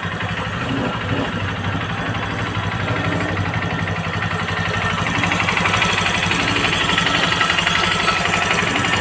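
Honda CRF150L's single-cylinder four-stroke engine idling through its stock exhaust, a steady, even pulsing that gets slightly louder about halfway through.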